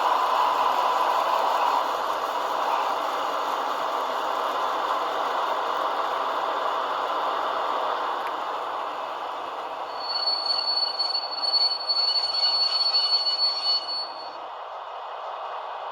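Diesel locomotive sound from a DCC sound decoder in a Brawa ÖBB 2048 model, played through the model's small speaker with almost no bass: the engine runs steadily, then about ten seconds in a high brake squeal sounds for about four seconds, and the sound drops quieter as it stops.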